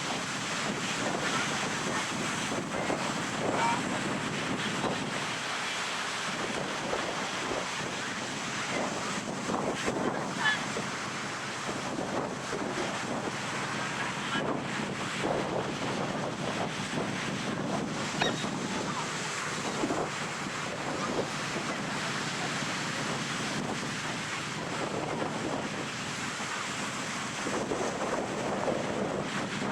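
Ocean surf washing steadily onto a sandy beach, with wind on the microphone.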